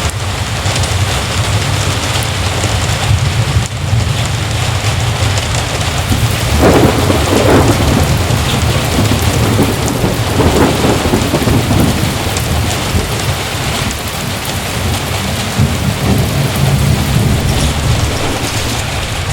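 Heavy rain pouring steadily, with a low rumble of thunder that swells louder about seven seconds in and again around ten seconds.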